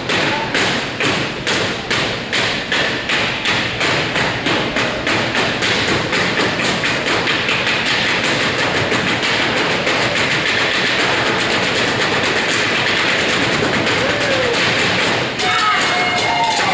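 An ensemble of drummers striking in unison, the beats speeding up from about two a second into a fast continuous roll. Near the end the roll breaks briefly and voices cry out over it.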